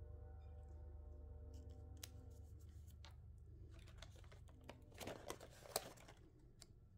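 Paper sticker sheet being handled and a sticker peeled from it: soft rustling with a few small clicks about five to six seconds in, the rest near silence.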